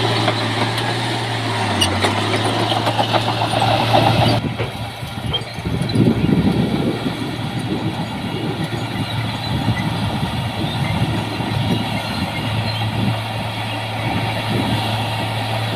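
Heavy earthmoving machine's diesel engine running steadily, with a metallic clatter over it that stops abruptly about four seconds in. After that the engine rumble swells under load for a few seconds.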